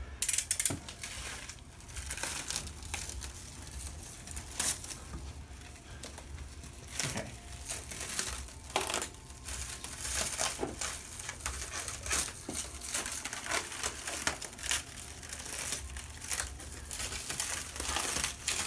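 Clear plastic stretch wrap crinkling and crackling in irregular snaps as it is pulled and peeled off a 3D printer's frame.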